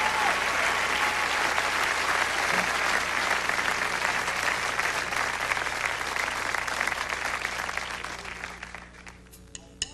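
Concert audience applauding, dying away over the last couple of seconds, with a few sharp clicks near the end.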